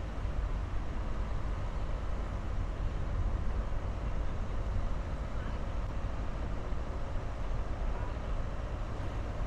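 Steady driving noise of a car moving along a city street: a continuous low rumble of engine and tyres on the road, with no sudden events.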